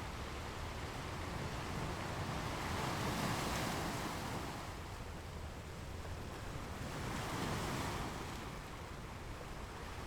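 Sea water washing in waves, rising in two louder rushing swells about three and seven seconds in, over a steady low rumble.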